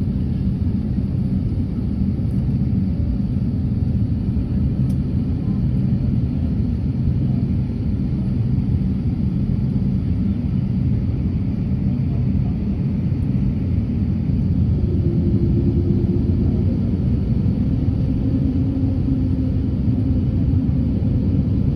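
Cabin noise of an Airbus A350 moving on the ground: a steady low rumble of the engines and airframe heard from inside, growing slightly louder in the last few seconds, with a faint hum coming in about two-thirds of the way through.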